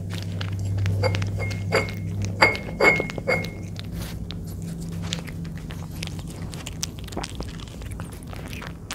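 Domestic cat chewing and smacking chunks of wet cat food in sauce close to the microphone: an irregular run of wet clicks and smacks. A few sharper clicks about one to three and a half seconds in leave a short ring. A steady low hum runs underneath.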